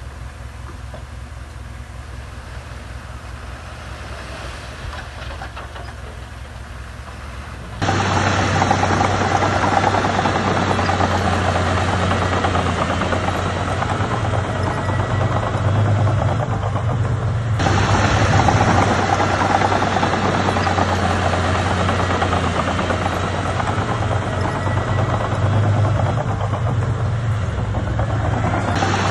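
Heavy diesel earthmoving machinery running steadily, a low engine drone with a broad rushing noise over it. About eight seconds in, the sound jumps abruptly much louder, and it shifts suddenly twice more later on.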